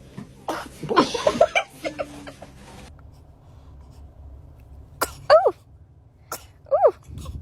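A child sneezing about half a second in, a noisy burst lasting over a second. Later come two short, high-pitched little vocal sounds, each with a sharp click, a few seconds later.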